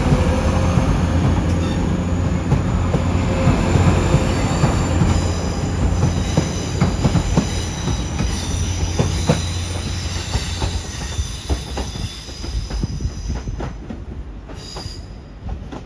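A train running on the track with its wheels squealing in several high steady tones and clicking over rail joints, the low running hum fading gradually toward the end.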